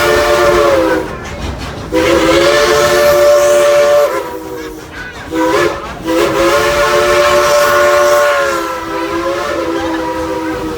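Steam locomotive whistle blowing a chord of several notes in repeated blasts: one ends about a second in, a long blast follows, then a short toot, then a last long blast that fades and trails off near the end.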